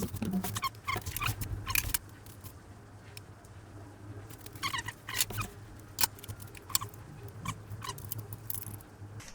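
Scattered light clicks, taps and knocks of table saw parts and tools being handled and set in place during assembly, a cluster in the first couple of seconds and more from about five seconds in, over a steady low hum.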